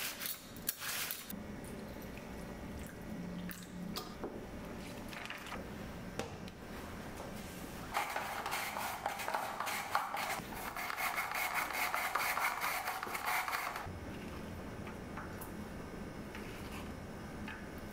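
Quiet kitchen work: scattered light clicks and knocks of dishes and utensils, with a steady rushing hiss for about six seconds in the middle, briefly broken once.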